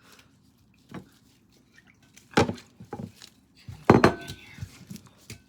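A few separate knocks and clatters of kitchen things set down or tapped on a wooden surface, the loudest about four seconds in with a short ring after it.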